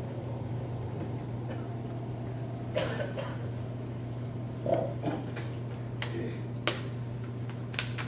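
A steady low hum, broken by a handful of short, scattered clicks and knocks, the sharpest near the end.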